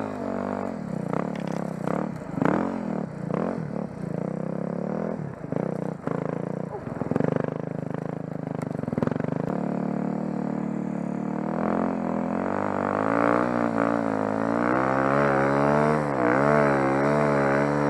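Beta 350RR's single-cylinder four-stroke engine on a Timbersled snow-bike conversion, revving under load, its pitch swinging with the throttle. It runs in sharp blips during the first half and holds a steadier, wavering pitch in the second half.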